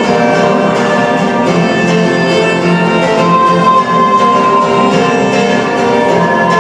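A bowed string ensemble, violins among it, playing slow music in long sustained notes; a high held note enters about halfway through.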